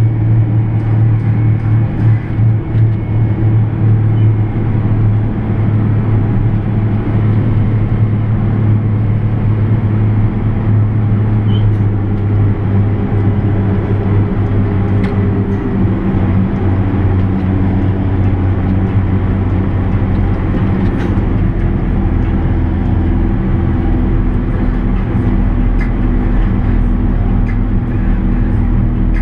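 JCB Fastrac 8310 tractor's six-cylinder diesel engine and drivetrain droning steadily inside the cab at road speed, with a slight change in tone about halfway through.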